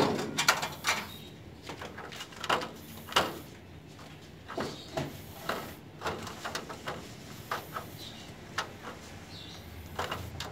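A loud bump right at the start as a kitten's fur brushes against the camera, then scattered light clicks and taps as Persian kittens move about a tiled cage.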